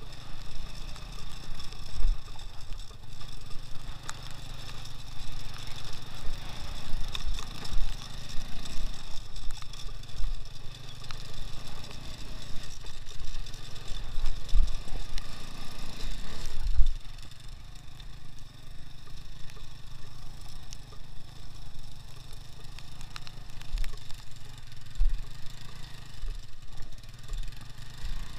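Engine of a two-wheel-drive (2x2) off-road motorcycle running as it rides over a rough field track, with scattered low thumps. It gets quieter about two-thirds of the way through.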